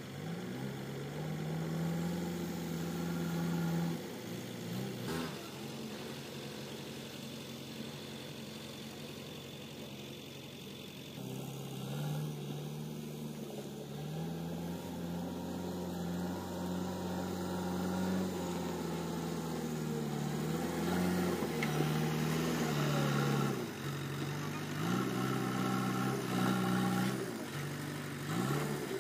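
Heavy diesel engine running, revving up and holding for a few seconds, then dropping back, again and again. There is a single sharp knock about five seconds in.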